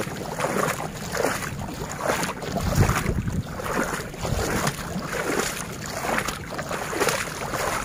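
Wind buffeting the phone's microphone, a noisy rumble that swells and fades in rough pulses, with a strong low gust about three seconds in.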